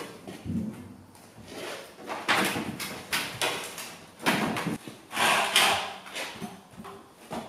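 Empty 315-litre steel hot water tank being rocked and walked across the floor, its base scraping and knocking in a run of rough, uneven scrapes.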